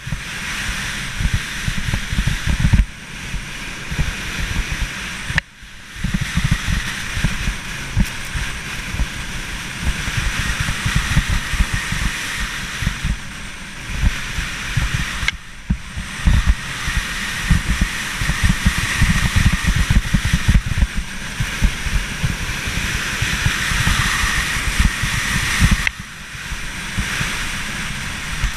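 Wind buffeting the action camera's microphone during a fast ski descent, an uneven low rumble, with the steady hiss of skis running over groomed snow. The sound drops for a moment several times.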